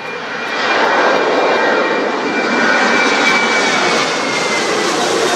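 Boeing 737's CFM56 turbofans at takeoff power as the jet climbs out close overhead: a loud jet roar that swells about a second in, with a high whine that drops slightly in pitch as it passes.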